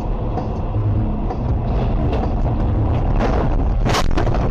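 Vehicle driving noise: a steady low rumble of engine and road, with a brief sharp crack or bang about four seconds in.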